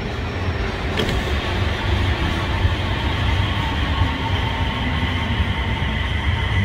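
Busan Metro Line 4 rubber-tyred automated train (Woojin-built set) running slowly past close by as it enters the station. There is a steady low rumble under a whine of several held tones that grows stronger in the second half, with a single sharp click about a second in.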